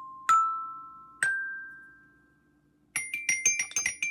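Three struck bell-like chime notes, each higher than the last and each ringing out, followed about three seconds in by a quick run of small clinks like metal or glass being tapped.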